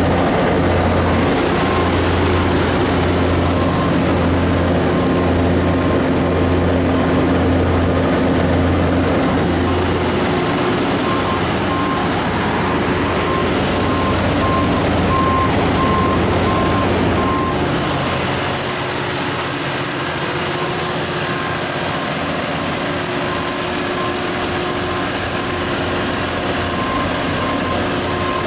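MTU 12V4000 V12 diesel generator set running steadily at 1800 rpm under about 440 kW of load-bank load. A steady, pulsing low drone thins out about two-thirds of the way through, leaving more hiss, over a constant high whine.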